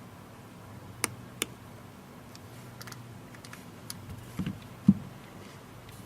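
Small sharp clicks and light taps of tablet parts being handled and pressed into place during reassembly: two crisp clicks about a second in, then a few duller knocks a few seconds later, over a low steady hum.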